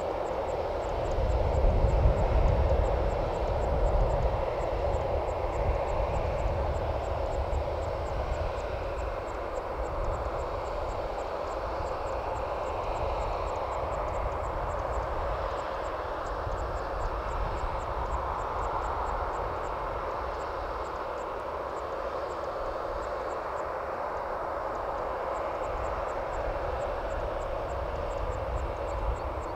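Steady jet-turbine hum across an airport apron, with a low rumble swelling for a few seconds near the start.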